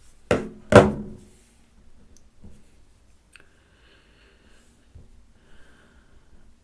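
Two sharp knocks about half a second apart, each with a brief ringing tone, followed by a few faint clicks and soft tones.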